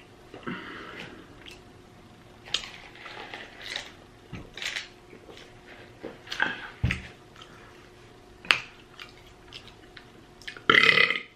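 Close-up mukbang eating sounds: chewing and lip smacking on fried chicken tenders and fries, with scattered light clicks and clatters. One louder, short burst comes near the end.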